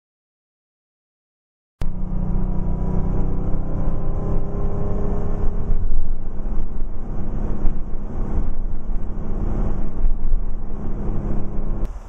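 Car cabin noise while driving: a steady engine drone with road noise, heard from inside the car. It starts abruptly about two seconds in, after silence, and cuts off near the end.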